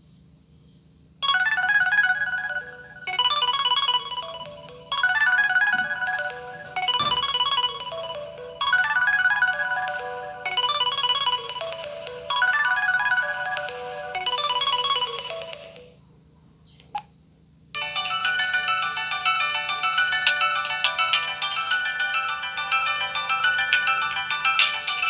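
LG ringtones played through a Samsung SGH-A767 Propel phone's small loudspeaker. One ringtone's short melodic phrase repeats about every two seconds and then stops. After a pause with a single click, a second, busier ringtone melody starts.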